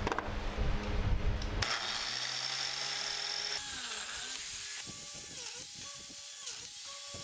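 Biscuit joiner motor running as it plunge-cuts biscuit slots into the edge of a hard maple tabletop. It is loudest for about the first second and a half, then quieter, its pitch dipping and recovering again and again.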